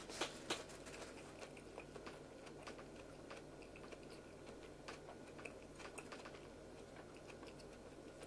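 Faint scattered small clicks and taps over a low steady hum, close to room tone; a couple of slightly sharper clicks in the first half second.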